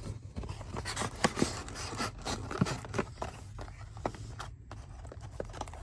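A sealed trading-card hobby box being handled and opened by hand: a run of irregular small clicks, taps and scrapes of cardboard and wrapping, over a steady low hum.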